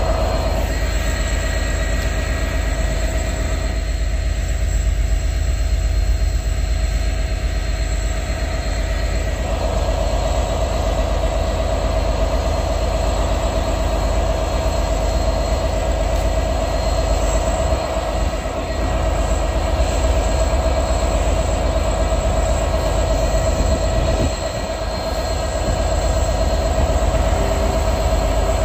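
Freightliner Class 66 diesel locomotive's two-stroke V12 engine running with a steady low rumble as the locomotive creeps slowly past, with a steady mid-pitched whine over it.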